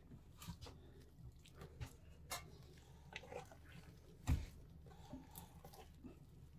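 Hands kneading soft, wet bread dough in an aluminium pot: faint sticky squelches and slaps, with one louder knock about four seconds in.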